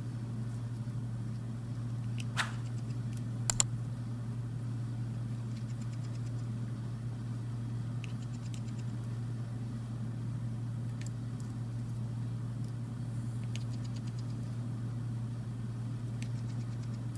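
A steady low hum with a few small sharp clicks and faint ticks from a precision screwdriver and screws on a smartphone's internal frame, the loudest a pair of clicks about three and a half seconds in.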